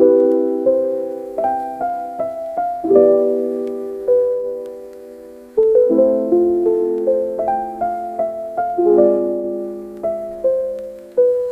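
Background piano music: gentle single notes and chords, each ringing and fading away.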